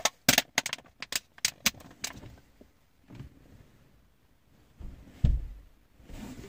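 A quick run of sharp clicks and taps over the first two seconds, then a single low thump about five seconds in.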